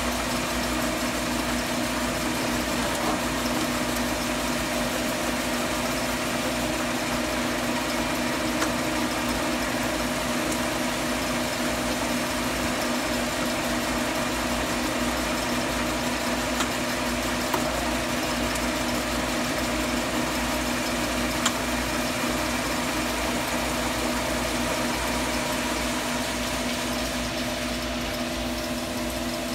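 Large 21-by-80-inch engine lathe running at a steady speed: an even mechanical hum from the headstock gearing and motor, with a few light ticks.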